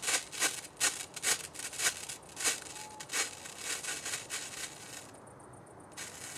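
Red pyrotechnic strobe torch burning, each flash giving a short fizzing pop, about two to three a second. The pops weaken and mostly stop about five seconds in as the torch burns down.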